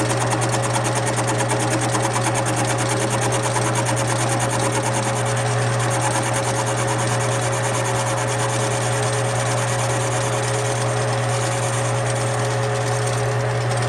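Metal lathe running with its four-jaw chuck spinning: a steady motor and spindle hum with a fast rattling buzz from parts vibrating on the machine.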